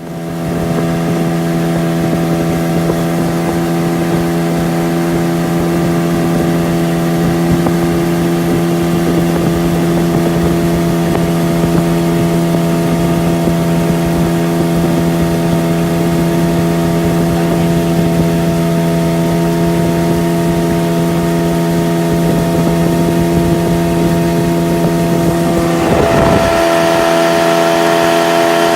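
Outboard motor on a 14-foot jon boat running steadily under way, with wind buffeting the microphone; the engine note steps up slightly near the end.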